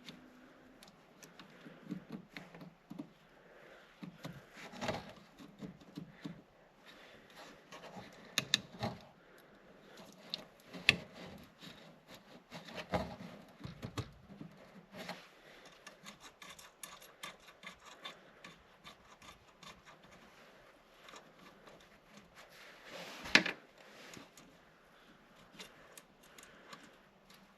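Close handling noise as wires and terminals are worked onto a winch switch box: irregular rubbing, scraping and small clicks, with one sharper click about 23 seconds in.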